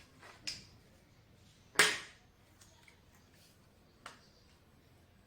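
Three sharp clicks from a rifle's mechanism being handled: a moderate one about half a second in, the loudest just under two seconds in, and a small one near four seconds.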